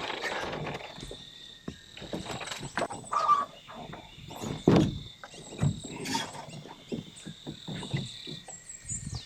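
A canoe being paddled, with irregular knocks and splashes from the paddle strokes, the loudest a little before halfway. Under them runs a steady, high-pitched drone of insects singing.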